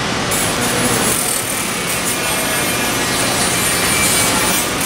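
A model freight train behind a diesel locomotive rolling past close by: a steady, rough rolling noise of metal wheels on the rails, with the locomotive's motor running.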